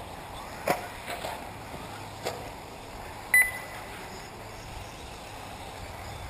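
A single short electronic beep about halfway through, from the race's lap-timing system, over a steady outdoor background. A few brief swishes and knocks come from the 1/8-scale electric RC buggies running on the track.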